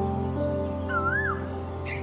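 Background music: held chords with a single warbling, whistle-like phrase about a second in.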